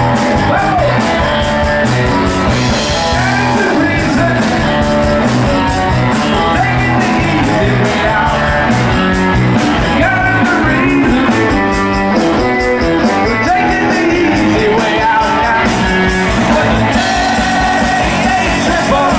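Live rock band playing at a steady beat: electric guitar, bass guitar, drum kit and congas, with a singing voice over the top.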